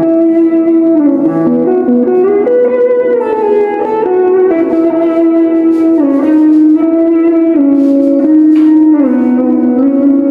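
Electric guitar, a Telecaster-style build, played through a Boss ME-80 multi-effects unit with distortion and ambience effects: a slow melody of long held notes that step up and down in pitch.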